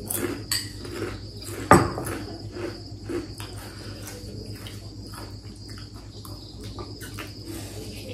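Metal forks clinking and scraping on plates while noodles are eaten, with one sharp clink a little under two seconds in. A steady high-pitched trill runs underneath.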